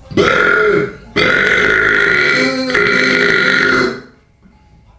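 Two loud belches: a short one, then after a brief pause a long, drawn-out one lasting nearly three seconds.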